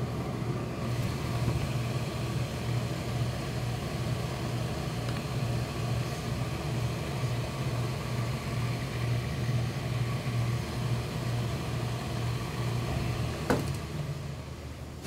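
Steady low electric motor hum with a faint hiss, from running workshop machinery, with one short click about 13 seconds in.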